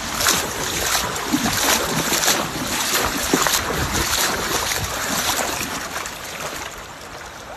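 Floodwater rushing, a loud, dense noise with irregular surges that eases over the last couple of seconds.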